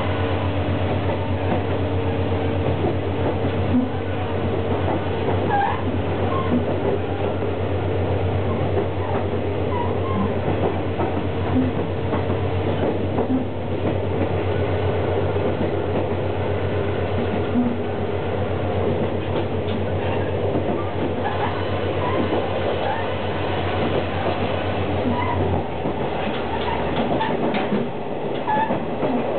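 Inside a KiHa 48 diesel railcar on the move: the underfloor diesel engine drones steadily under wheel and rail noise, and the engine's low drone drops away about 26 seconds in.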